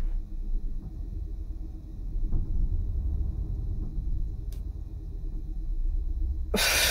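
Low, steady rumble of a sound-designed spaceship interior ambience, with a few faint ticks. Near the end comes a short, loud burst of hiss.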